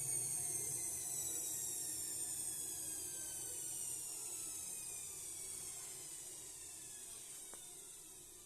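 Washing machine motor and drum spinning down: a high whine falling slowly in pitch and fading, with a faint click near the end.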